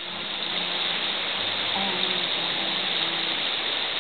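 A steady rushing noise with faint voices under it.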